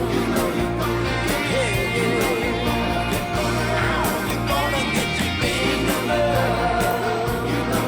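Rock music with a male-style sung melody over guitar and a steady beat.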